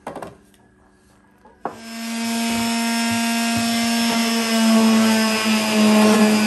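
A small handheld electric detail sander is switched on about a second and a half in and runs steadily with a constant motor whine, its pad scuffing the gray-stained wood of the base to wear the stain back. A short knock comes at the very start.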